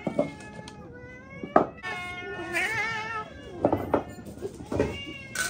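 Cats meowing for food at feeding time, a run of drawn-out calls, one of them wavering, broken by a few sharp knocks as ceramic food bowls are set down.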